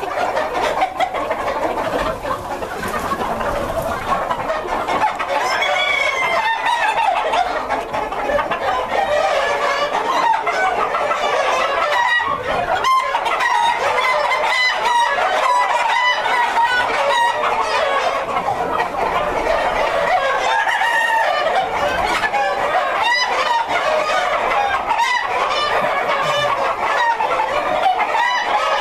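A large flock of Brown Leghorn chickens clucking and cackling together in a continuous dense chorus, with roosters crowing now and then over it.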